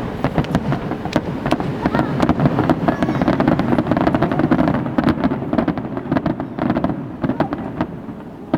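Fireworks display: a rapid, dense volley of bangs and crackling that thins out near the end.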